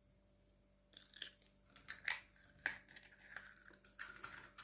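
Eggshell crackling and clicking faintly as a cracked egg is pulled open, a scattered run of small sharp clicks starting about a second in.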